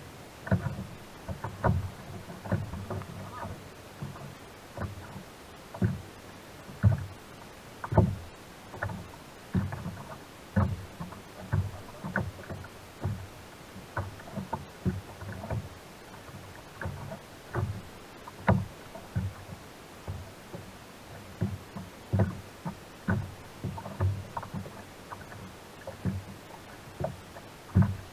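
Small waves slapping and knocking against the hull of a sit-on-top kayak: irregular low thuds and splashes, about one a second, over a steady background wash.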